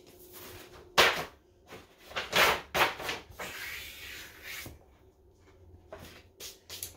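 Sheets of paper rustling and sliding as they are handled on a countertop, with a hand rubbing across the counter: several short rustles, the loudest about a second in, a softer drawn-out rub in the middle and a few light taps near the end.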